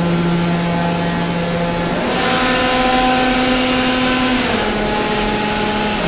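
Hydraulic drive of a Tederic D2200T injection moulding machine running with a steady whine that steps up in pitch about two seconds in and drops partway back about two seconds later, as the machine shifts between stages of its moulding cycle.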